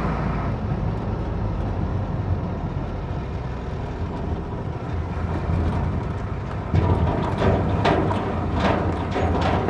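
Big truck driving, heard from inside the cab: a steady low engine and road rumble. From about two-thirds of the way in, a run of sharp metallic knocks and rattles comes in over it.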